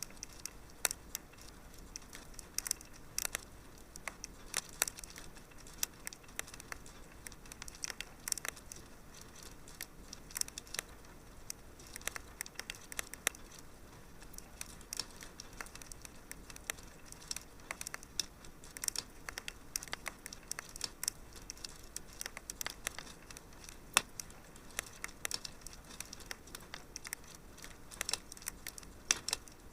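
Wood fire crackling: a steady low hiss dotted with many small, irregular pops and snaps.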